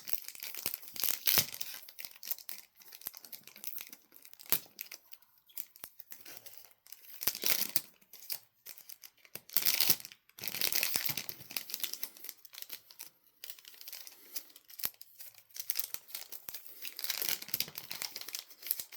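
Foil booster pack wrapper being torn open and crinkled, in several short bursts with small clicks and rustles between.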